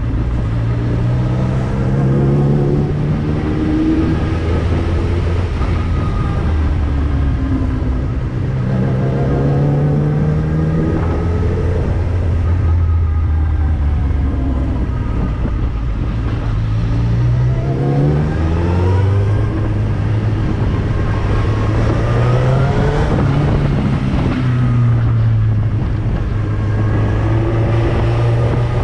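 Motorcycle engine under way, its revs climbing and dropping back several times as it accelerates, shifts and slows, over a steady rush of wind noise.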